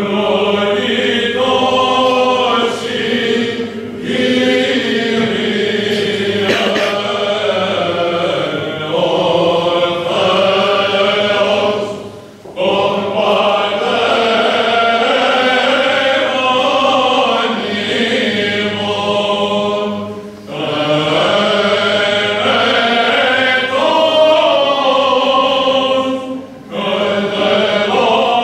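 Greek Orthodox Byzantine chant: voices sing long, slowly winding melodic phrases, breaking off briefly about every six to eight seconds.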